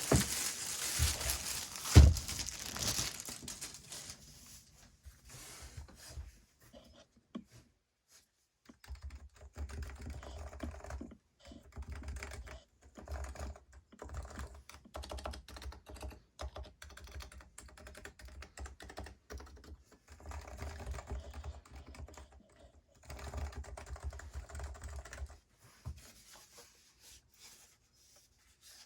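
Typing on a Leopold FC660c keyboard with Silent Topre switches, keystrokes in several runs with short pauses, stopping a few seconds before the end. Before the typing there is handling noise with a loud thump about two seconds in.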